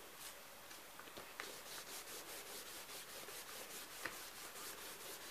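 Paper rubbed back and forth over wet paper in quick repeated strokes, several a second, starting about a second and a half in, with a few small taps: mopping up leftover coffee-and-tea dye.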